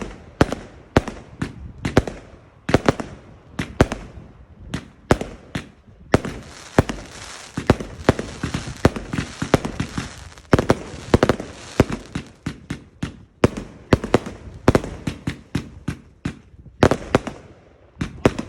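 Fireworks firing a rapid, irregular run of sharp bangs, about two to three a second, with a denser crackling hiss between the bangs through the middle stretch.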